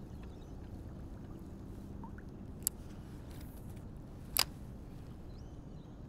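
Two sharp clicks about a second and a half apart, the second louder, over a steady low rumble.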